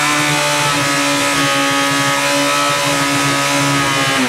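Yamaha R1 inline-four motorcycle engine held at steady high revs while being run to destruction, smoking heavily. Right at the end its pitch starts to drop as it begins to fail.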